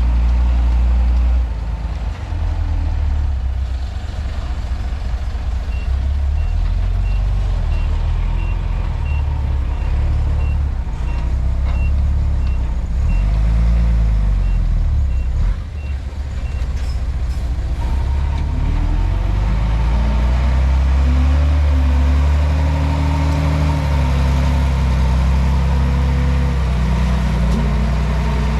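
Komatsu D31P bulldozer's diesel engine running under load, its pitch shifting as it works. A reversing alarm beeps steadily, a little under twice a second, from about six seconds in until about seventeen seconds in.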